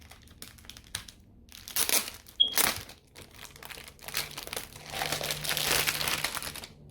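Album packaging crinkling and rustling as it is handled and opened, in a few short bursts and then a longer stretch in the second half.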